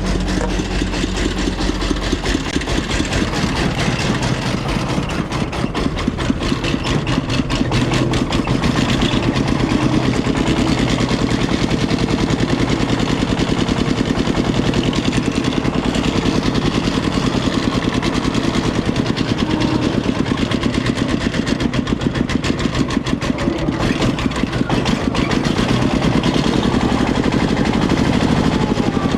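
Diesel engines of an excavator and a công nông farm truck running steadily, with a fast, even beat.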